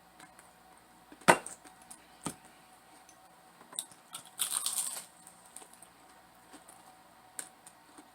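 Close-up eating sounds: scattered small mouth clicks and taps, a sharp click a little over a second in and another about a second later, then a short crunchy burst about four and a half seconds in.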